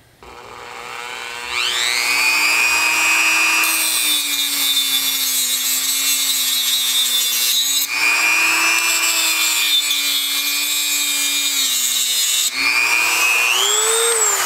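Dremel rotary tool with a cutoff disc spinning up to a steady high whine, then grinding through the metal rails of model railroad flex track, with a gritty hiss over the whine during two long stretches of cutting. Near the end the whine climbs in pitch, then begins to fall.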